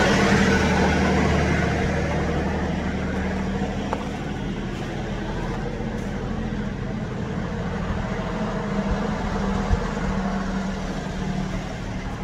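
A large engine idling steadily, its level easing off a little over the first couple of seconds and then holding even.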